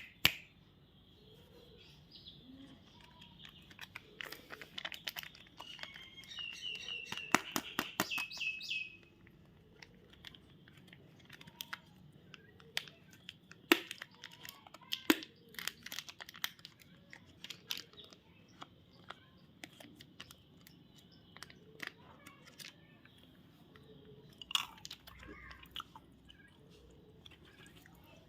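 Chocolate and candy packaging being handled and opened: scattered sharp clicks and crinkling crackles of wrappers. A busier burst of crinkling a few seconds in carries a short run of high chirping tones, stepping down in pitch.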